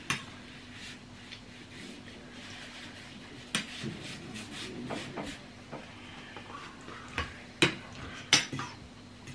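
Metal spoons and forks clinking and scraping against ceramic bowls while eating, with scattered short sharp clinks, the loudest ones in the last few seconds.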